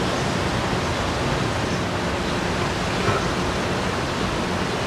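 Steady wind noise on the microphone, an even rushing hiss with a faint low hum beneath it.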